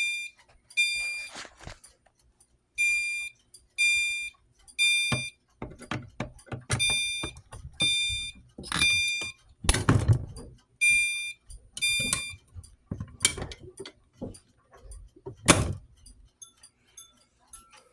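CHSR horn strobe sounding its horn in the temporal-3 pattern: groups of three half-second honks with a pause between groups, repeating until it stops about twelve seconds in. Several sharp knocks and thumps come between and after, the loudest near ten seconds in.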